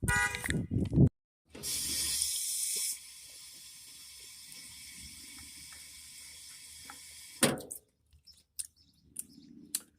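Water running from a tap. It starts about a second and a half in, runs strongly at first and then steadier and softer, and shuts off after about six seconds.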